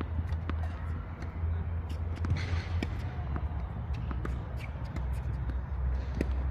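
Ball bounces and shuffling footsteps on a court: scattered sharp knocks and scuffs at an irregular pace, over a steady low hum.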